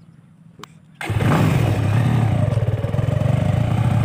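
Motorcycle engine running steadily as it rides along, under a rushing noise. It cuts in suddenly about a second in, after a faint low hum.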